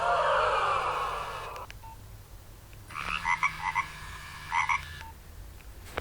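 Nokia 1112 mobile phone playing its ringtones through its small speaker. First comes a chirping, croak-like tone of quick falling sweeps for about two seconds. After a short pause comes a run of short electronic beeps, with a low hum underneath.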